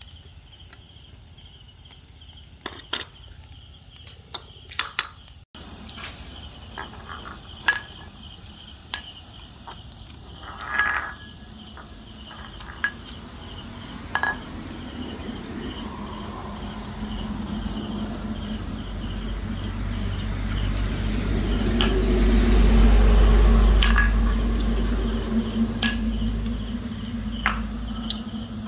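Chopsticks and spoons clinking against ceramic bowls in scattered taps, over steady chirping of insects. A low rumble swells and fades in the second half.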